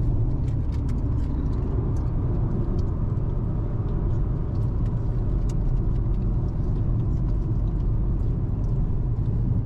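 A car driving, a steady low rumble of engine and road noise.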